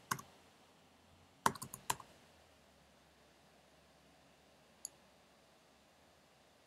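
Computer keyboard keystrokes: a quick run of about five key clicks as a five-digit number is typed, about a second and a half in, then a single faint click near the end.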